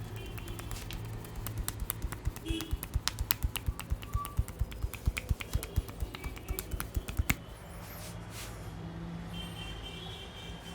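Rapid run of sharp percussive taps and snaps from a barber's hands working a head massage, getting louder and quicker, then stopping abruptly about seven seconds in.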